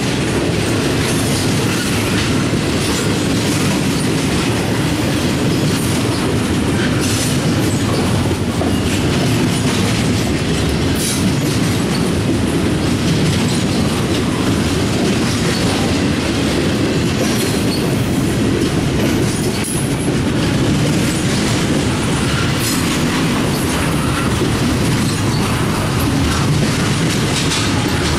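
Double-stack intermodal container cars of a CSX freight train rolling past: a steady low rumble of steel wheels on rail, with scattered clicks and a brief high wheel squeal.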